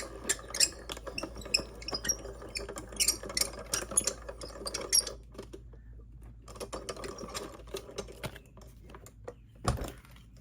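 A paper panel in an embossing folder being run through a die-cutting and embossing machine: rapid mechanical clicking and rattling that pauses about five seconds in, then resumes, with a thump near the end.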